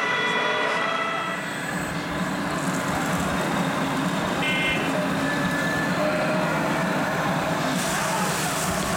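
Two-tone siren from a radio-controlled model fire truck's sound module, alternating steadily and stopping about a second and a half in. After it comes an even background din, with a short tone about halfway through.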